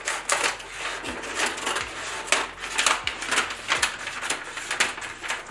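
Stiff brown pattern paper rustling and crackling as it is handled and moved on a table, in a run of irregular short crinkles and taps.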